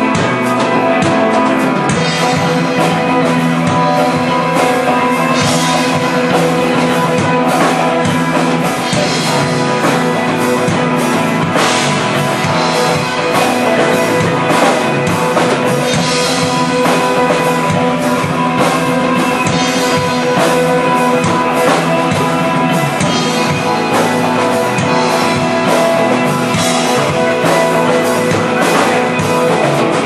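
Live rock band playing: electric guitars over a drum kit, loud and continuous.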